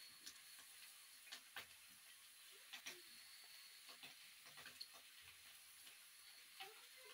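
Faint, irregular light ticks and taps of wild mushrooms being picked over by hand on a concrete floor, a few every second or so, over a faint steady hiss.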